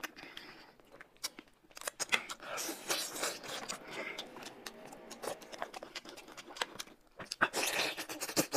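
Plastic snack packets crinkling and being torn open, with scattered clicks and rustles. A burst of crinkling about three quarters of the way through, along with biting and chewing of food.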